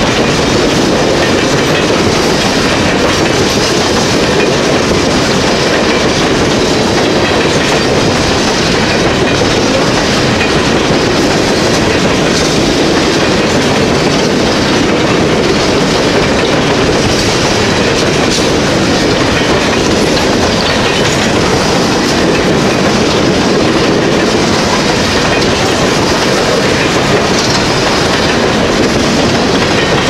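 Freight train of open-top hopper cars rolling past at close range: steady noise of steel wheels running on the rails, with no horn.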